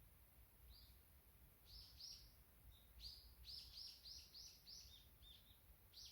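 A small bird calling faintly in forest: short, high chirps, a few at first, then a quick run of about six notes from around three seconds in, with more near the end. A faint low rumble of wind runs underneath.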